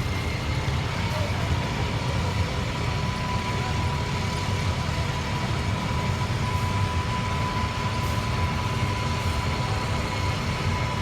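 Heavy truck engine running steadily, a low rumble with a thin steady whine over it.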